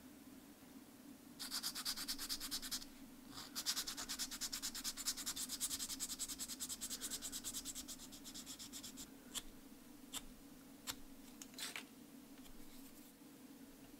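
Sandpaper rubbed quickly back and forth across the edge of a small clear plastic crankbait lip: two spells of rapid, fine scratching strokes, the second several seconds long, followed by a few light clicks.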